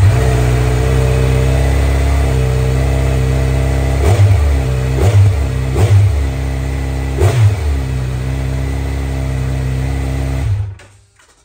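Kawasaki Z900's inline-four engine idling through its stock exhaust, with four quick throttle blips in the middle. The sound stops shortly before the end.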